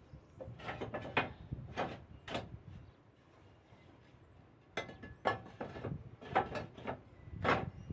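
Irregular knocks and scraping clatters from roof repair work, roughly one every half second, pausing for about two seconds midway.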